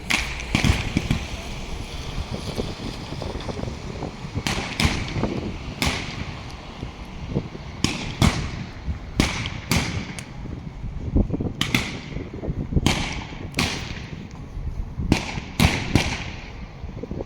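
Fireworks bursting in a rapid, irregular series of sharp bangs, each trailing off with an echo, some in quick pairs and triplets.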